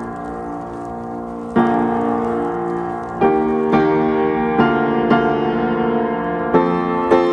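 Slow background piano music: held chords, with new notes struck more often in the second half.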